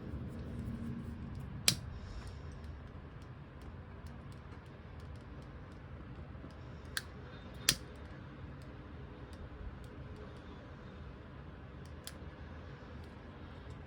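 A few sharp clicks and taps, two of them loud, with fainter ticks between, over a low steady hum.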